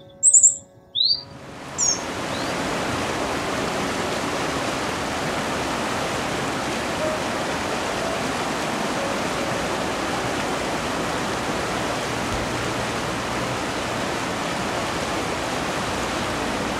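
A river's water rushing steadily over shallow riffles, starting about a second and a half in. Before it, a few quick bird-like chirps sound, some rising and some falling.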